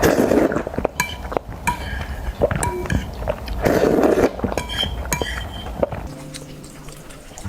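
Eating utensils clinking and tapping against a bowl while noodles are eaten, in a string of sharp clicks with two short bursts of noise. Steady background music tones come in about six seconds in.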